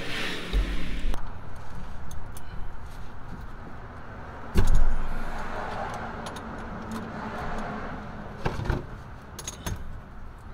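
Scattered metallic clinks and knocks as an oil drain plug under the car is worked loose by hand, the loudest knock about four and a half seconds in and a few quicker clicks near the end.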